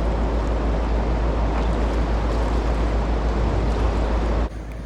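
Loud, steady rush of wind and water noise with a heavy low rumble, dropping away abruptly near the end.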